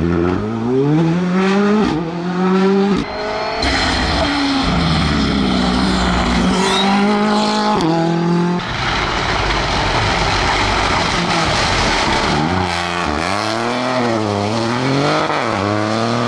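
Rally car engines accelerating hard out of corners, their pitch climbing through each gear and dropping at every upshift, over several passes, with a Ford Fiesta rally car first.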